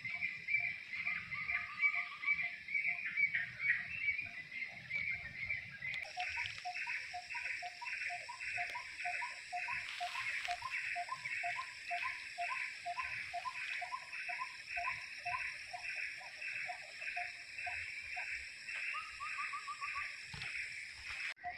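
Outdoor animal calls: a high pulsing call beating about two to three times a second, with a lower note repeated at a similar pace. Brief trills come in about a second in and again near the end.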